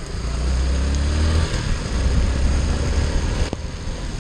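Motorcycle engine pulling away out of a corner, its pitch rising over the first second and a half as it accelerates. Heavy low wind rumble on the microphone and the hiss of rain and wet road run under it.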